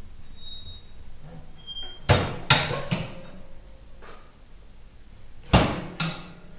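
Door of a glass-fronted wood-burning stove being handled: a few short squeaks, then sharp metal clanks as it is shut and latched. Three knocks come about two seconds in and two more near the end.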